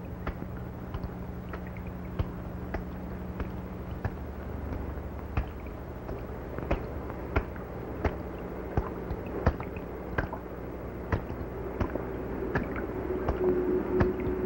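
Irregular sharp clicks and crackle, a few a second, over a steady low hum: surface noise of an old 16 mm film soundtrack. A faint steady tone comes in near the end.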